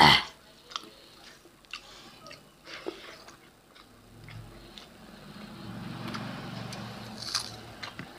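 Close-up eating sounds of two people eating rice and pork curry by hand: chewing and wet lip smacks with scattered sharp clicks, the loudest one right at the start. A faint low hum runs for a few seconds past the middle.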